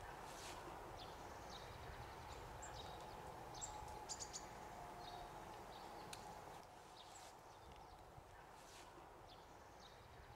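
Faint outdoor ambience with small birds chirping: short high chirps scattered throughout, a little louder around four seconds in.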